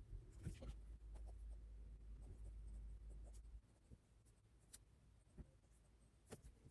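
Faint scratching of writing on paper, with a few small ticks and taps. A low hum underneath stops about halfway through.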